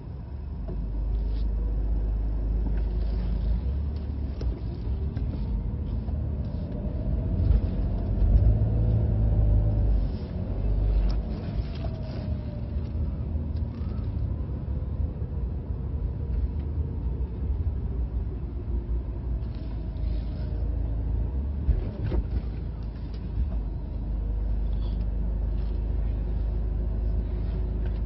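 Road traffic with a steady low rumble. About a quarter of the way in, a passing vehicle's engine rises and falls in pitch, and there are scattered small clicks.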